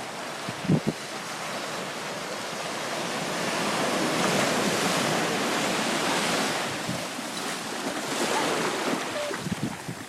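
Ocean surf washing onto the beach, a steady rush that swells twice, with wind on the microphone. A couple of brief thumps about a second in.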